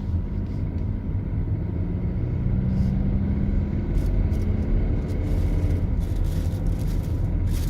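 Steady low in-cabin rumble of a 2015 Luxgen U7 Eco Hyper SUV driving with its engine still cold. A faint hum rises slightly a few seconds in, and light ticks come near the end. This is the abnormal noise the owner hears while the car runs cold.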